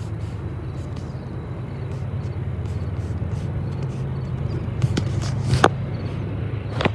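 Low, steady rumble of the diesel locomotives of an approaching freight train, slowly growing louder. Two sharp knocks near the end.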